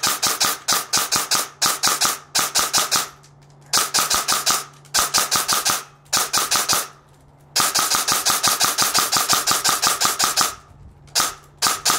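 Umbrella Armory ARP-9 airsoft electric gun with a dual-sector gear firing full-auto, about ten shots a second. It fires in several bursts with short pauses between them.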